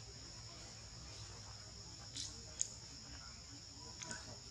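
Steady, faint high-pitched drone of insects in the surrounding forest, with a few small faint clicks about two, two and a half and four seconds in.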